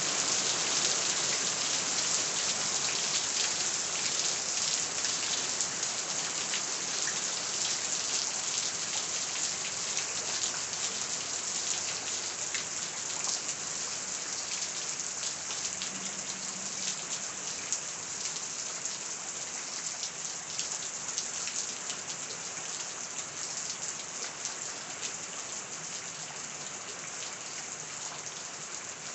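Steady rain falling, a dense patter of many individual drops, slowly fading in level over the span.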